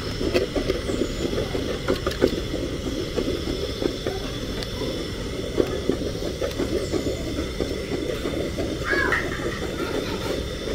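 Wooden stick stirring a thin blended banana mixture round an aluminium pot: a steady run of sloshing and scraping strokes.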